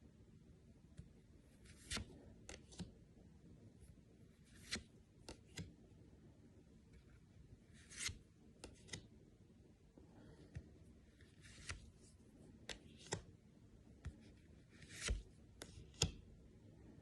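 Magic: The Gathering cards being handled and slid against one another: irregular soft flicks and rustles, a dozen or so short ones with quiet stretches in between.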